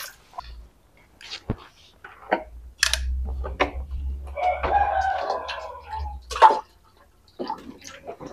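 A rooster crowing once, about four seconds in, over intermittent knocks and splashes of washing at a sink.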